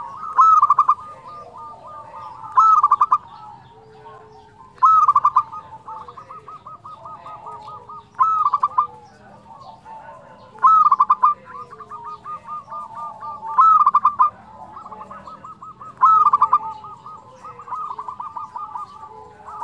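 Local-strain zebra dove (perkutut lokal) cooing in its flute-like voice: a loud burst of quick coos about every two and a half seconds, with softer rapid coos running between them.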